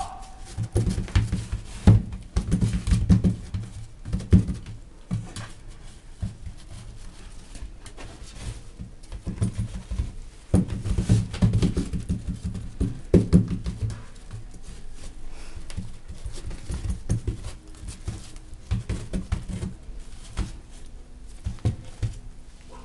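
English bulldog puppy scrambling and tussling with a hand on an artificial grass mat: clusters of rapid soft knocks and scuffs, busiest in the first few seconds and again around halfway through.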